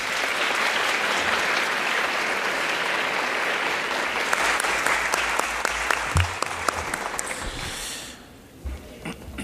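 Audience applauding: dense, steady clapping that fades away about eight seconds in.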